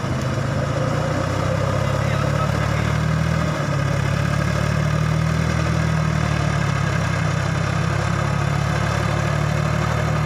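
Farmtrac 6050 4WD tractor's diesel engine running steadily under load while pulling a rotavator through a wet paddy field.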